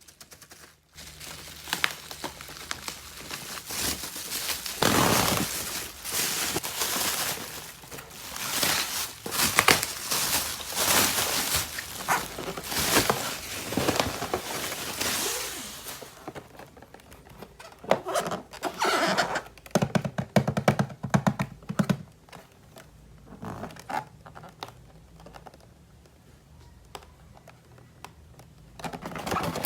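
Hands handling a toy and its packaging at close range: plastic and paper crinkling and tearing, with many small clicks and knocks. It is dense for about the first half, then sparser.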